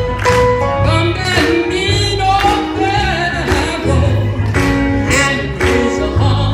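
Gospel choir singing with band accompaniment over a steady beat.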